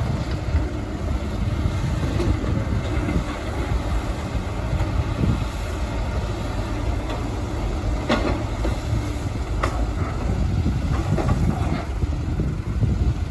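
Heavy diesel engines of hydraulic excavators and dump trucks running under load, a steady low rumble. Two sharp knocks stand out past the middle.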